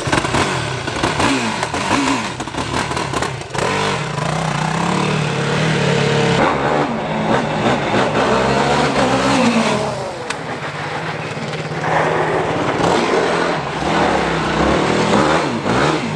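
Yamaha YFZ450R sport quad's single-cylinder four-stroke engine being revved and ridden, its pitch rising and falling repeatedly as the throttle opens and closes.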